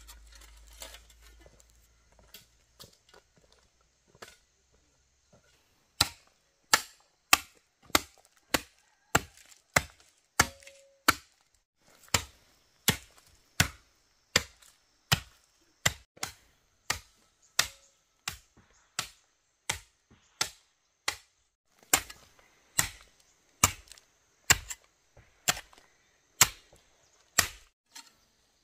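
A hand tool striking repeatedly in a steady rhythm, about one and a half sharp blows a second, starting about six seconds in.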